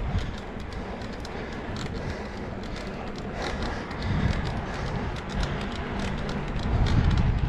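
Mountain bike being ridden along a trail: a steady low rumble with many small clicks and rattles from the bike, growing a little louder near the end.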